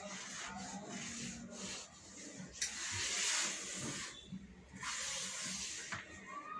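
Toothbrush scrubbing a wooden bed headboard, a scratchy rubbing with two longer, louder hissing stretches partway through.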